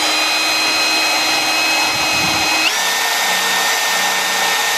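Power tool spinning a mounted grinding stone against a plastic bumper bracket, grinding it down so a carbon fiber lip will sit flush. A steady high whine over a rough grinding noise, the whine stepping up in pitch about two and a half seconds in.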